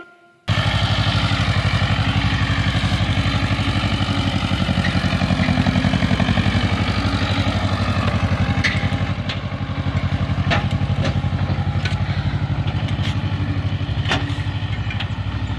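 Ursus tractor's diesel engine running steadily with a fast, even pulse while towing two trailers loaded with hay bales, with a few sharp clicks in the second half.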